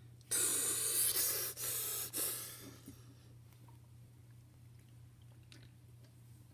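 A child breathing out a loud, breathy hiss right into a phone microphone for about two and a half seconds, broken briefly twice, then only a faint steady low hum.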